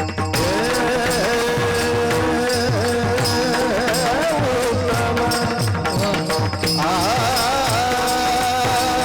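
Marathi devotional kirtan singing in a high voice: one long ornamented line that jumps up in pitch about seven seconds in, over a steady hand-drum beat and small cymbals.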